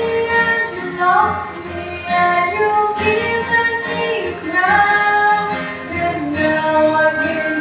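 A woman singing a worship song into a microphone, holding notes and gliding between them, over music.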